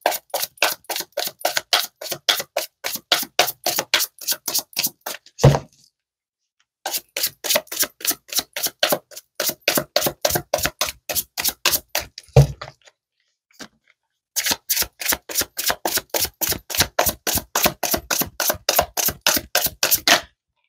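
A deck of tarot cards being shuffled by hand, a quick even run of card slaps about four or five a second, stopping twice with a thump of the deck on the table and then starting again.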